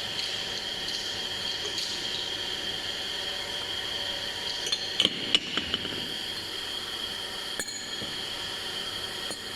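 A steady hiss runs throughout, with a few sharp metal clinks about five seconds in, typical of parts of a piston filler's pump being handled.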